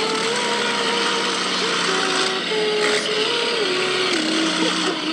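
Inside the cab of a Peterbilt semi truck driving on the road: steady engine and road noise, with a droning tone that slowly drops in pitch in a few steps.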